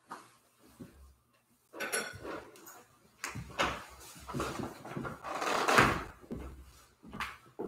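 Irregular knocks, clinks and rustling as altar items are handled and set down, the loudest about six seconds in.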